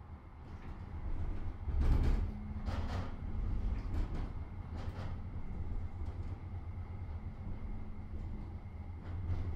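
Electric tram running, heard from inside the car: a low rumble of wheels on rails with a faint steady hum. Several sharp clacks and knocks come between about two and five seconds in.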